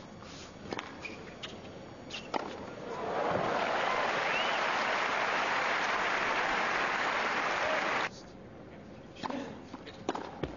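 Tennis ball hits: a serve and a short rally of racket strikes and bounces. The crowd then applauds for about five seconds, and the applause cuts off abruptly. A few ball bounces follow near the end.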